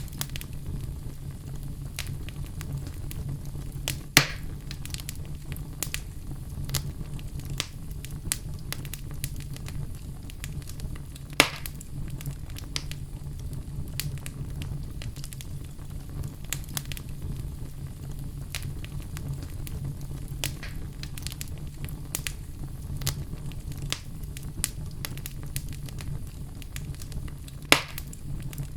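Oak logs burning in a fireplace: a steady low rumble of flames with frequent small crackles, and three sharp loud pops, about four seconds in, around eleven seconds, and near the end.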